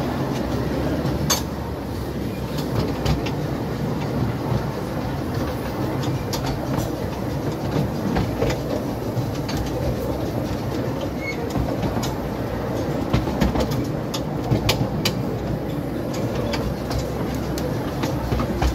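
Carriage of a 12¼-inch gauge miniature steam railway running along the track: a steady rumble of wheels on rail, with sharp clicks at irregular intervals.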